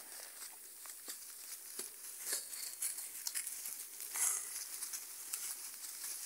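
Dry leaf litter and twigs crackling and rustling under the hooves of cattle walking past, an irregular patter of small cracks with a few louder crunches.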